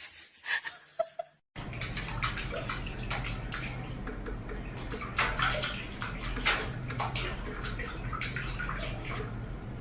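Water running and splashing: a steady rush with irregular louder splashes that starts abruptly about a second and a half in, after a few faint clicks.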